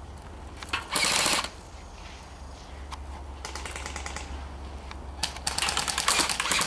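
Airsoft electric gun firing three full-auto bursts of rapid clicking: a short loud one about a second in, a quieter one in the middle, and a longer loud one near the end.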